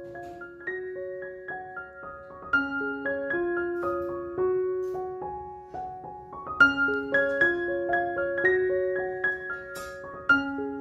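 Background music: a piano playing a simple melody of single ringing notes, with a new phrase starting more strongly about every four seconds.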